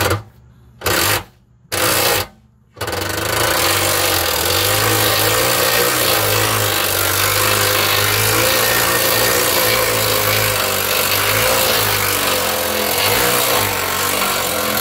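Ridgid compact cordless impact gun with a 22 mm socket, driven clockwise on the spare wheel hoist to wind its cable up and raise the spare tyre: three short trigger bursts, then one long continuous run from about three seconds in.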